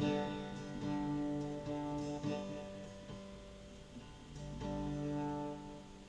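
Acoustic guitar music: chords strummed and left to ring, dying down in the middle before the strumming picks up again about four and a half seconds in.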